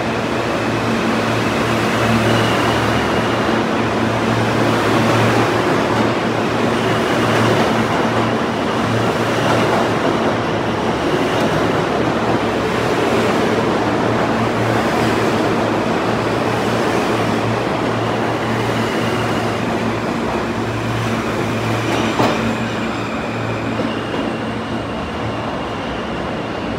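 R160 subway train pulling out and running past the platform: a steady rumble of wheels and motors with a high tone coming and going, easing slightly near the end.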